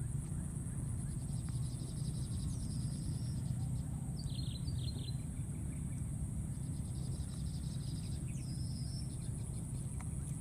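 Outdoor ambience: a steady low rumble under a constant high insect drone, with a few short high chirps, one about two and a half seconds in, a pair about four seconds in, and another near nine seconds.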